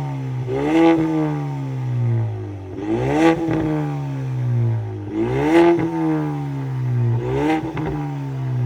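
Ford Mustang with its muffler and resonator removed, revved four times from idle, each blip rising in pitch and falling back to a steady idle.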